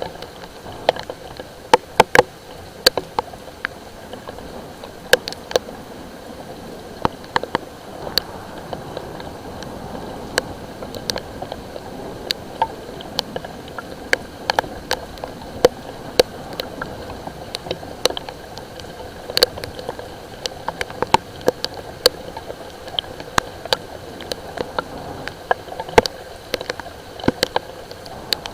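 Light rain: a steady hiss with scattered raindrops tapping sharply and irregularly on a hard surface, several taps a second at times.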